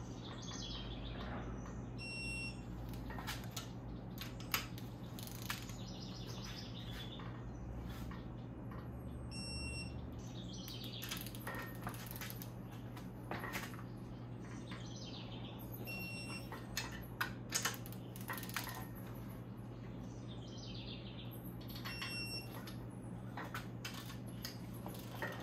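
A half-inch torque wrench tightening the cylinder head bolts of a BMW S54 inline-six, with a few sharp metallic clicks as bolts are pulled up to torque, over a steady low hum. Birds chirp in short falling calls, and a short high beep comes four times, about every six or seven seconds.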